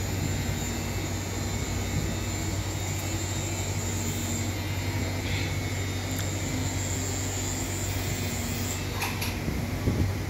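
Steady electric hum of a pen-style rotary tattoo machine running, with a high thin whine over a low drone and a light click near the end.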